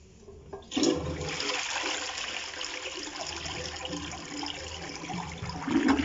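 Toilet flushing: a sudden rush of water just under a second in, then water swirling and running steadily down the bowl, swelling louder again near the end.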